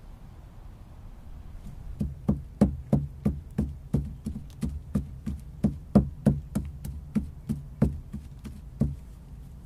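Pestle pounding in a basket-hopper mortar: a steady run of dull knocks, about three a second. It starts about two seconds in and stops near the end.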